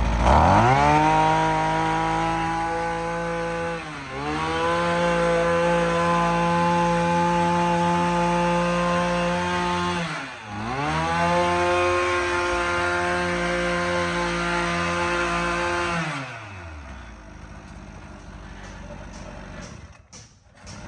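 Small two-stroke brush-cutter-type engine of a walk-behind field trenching machine. It revs up at the start and is held at high throttle, eased off briefly about 4 and 10 seconds in, then drops back to a low idle about 16 seconds in.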